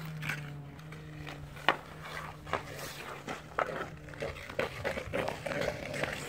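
Hockey sticks and a puck clicking and knocking on ice, with an irregular series of sharp taps, over a steady low hum that fades out about two-thirds of the way through.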